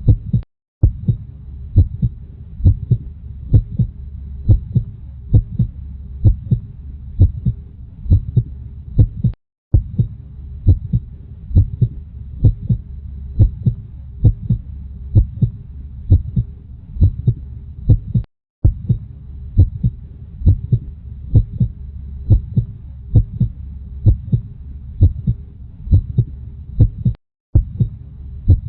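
Heartbeat: regular, steady low thumps over a low hum, broken by a brief gap of silence about every nine seconds.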